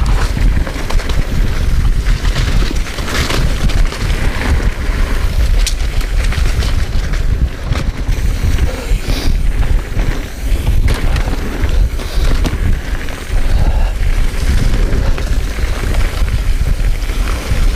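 Wind buffeting the mountain biker's chest-mounted GoPro during a fast descent, with the mountain bike's tyres rolling over a dirt and leaf-litter trail and scattered clicks and rattles from the bike over bumps.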